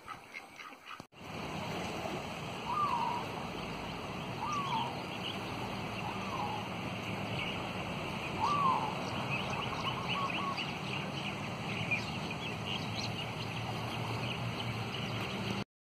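Steady outdoor wash of water and wind at a rocky shoreline, with a faint low hum underneath, starting about a second in. Birds call over it: four clear down-slurred whistles about two seconds apart, and scattered higher chirps.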